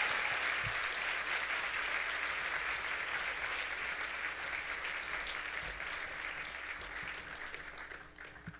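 Audience applauding, loudest at first and slowly dying away, ending near the end.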